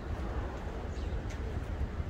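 Outdoor park ambience: a steady low rumble under an even hiss, with a few short, high bird chirps about half a second in, around one second, and again shortly after.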